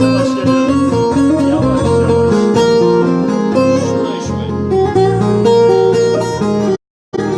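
Instrumental passage of a Turkish folk melody on a plucked long-necked lute, with a steady low bass under the melody notes. The sound cuts out for a moment near the end.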